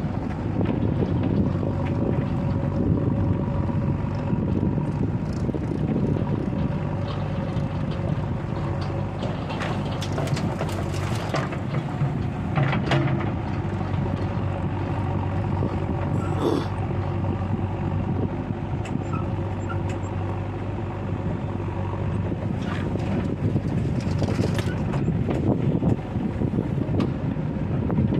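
Diesel engine of heavy earthmoving machinery running steadily, with a few short knocks and clanks.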